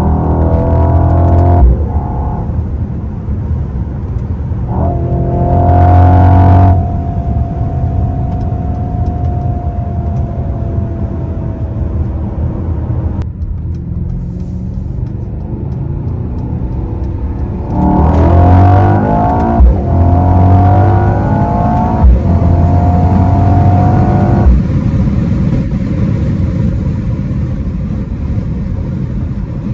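Mercedes-AMG GLE 63 S twin-turbo V8 heard from inside the cabin at highway speed, accelerating hard in several bursts that rise in pitch. Short sharp exhaust cracks come at the upshifts. Between bursts it settles to a steadier cruising drone.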